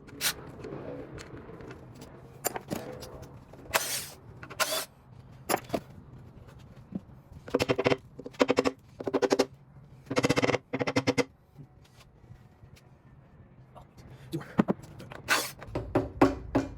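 Hand tools working metal engine parts: a ratchet wrench clicking in several short runs, the longest about a second, with scattered sharp clicks and knocks of tools on metal, as the timing chain cover bolts are worked loose.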